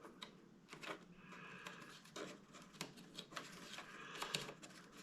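Faint, scattered small clicks and rustles of hands working a rubber drive belt through the plastic housing of a Bissell ProHeat carpet cleaner.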